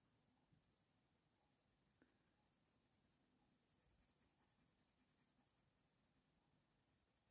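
Very faint scratching of a Faber-Castell Polychromos coloured pencil (Warm Grey I) stroking on hot-press watercolour paper in short repeated strokes, with a small tick about two seconds in.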